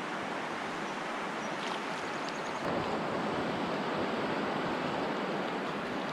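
Steady rush of water splashing and churning against the foot of a concrete block at the river's edge. It grows slightly louder a little under three seconds in.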